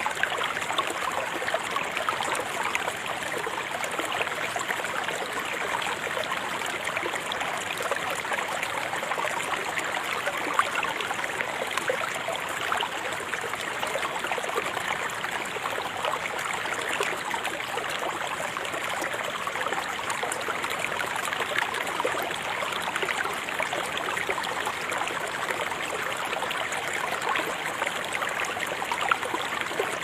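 River water flowing: a steady, babbling rush of water with many small splashes.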